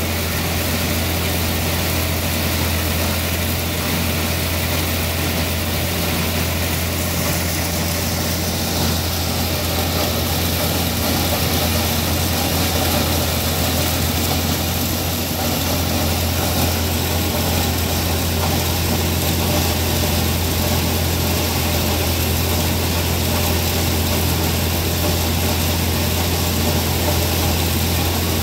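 Tractor engine running steadily while driving a grinder-mixer that is grinding ear corn, a low engine hum under a dense rushing grinding noise. The higher rushing noise grows louder about eight seconds in.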